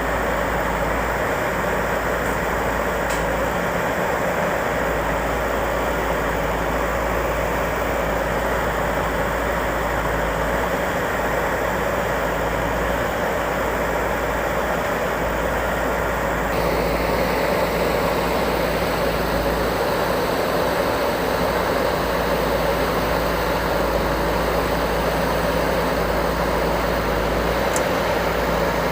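Heavy diesel engine of a JCB backhoe loader running steadily, getting a little louder just over halfway through.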